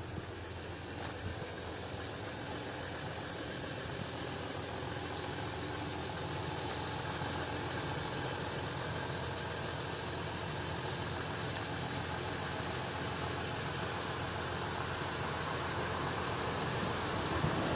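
Audi A6 3.0 TDI V6 diesel engine idling steadily on a cold start.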